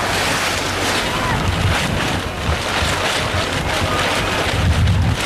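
Wind buffeting an outdoor microphone: a loud, steady rush with an uneven low rumble that swells near the end.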